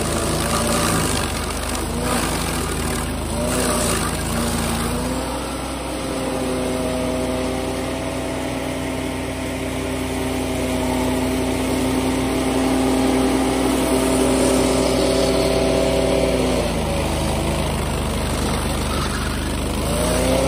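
Stump grinder engine running while its cutting wheel grinds a soft willow stump, with a rough grinding noise over the engine. The engine pitch wavers and sags under load while cutting. For several seconds in the middle it holds steady at a higher speed with the wheel out of the wood, then it drops back under load near the end.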